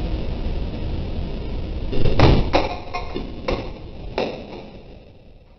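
Nakamura-Tome CNC lathe running with a steady low hum, then its tool turret striking the aluminium workpiece in the chuck: one loud bang about two seconds in, followed by four smaller knocks that fade away. This is a turret collision of the kind the lathe's Air Bag crash protection is meant to cushion.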